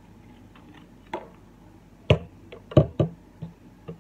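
Hard plastic clacks and knocks from wall fan parts being handled and fitted together, mainly the plastic rear motor cover: about five separate sharp clicks, the loudest two about two seconds and just under three seconds in.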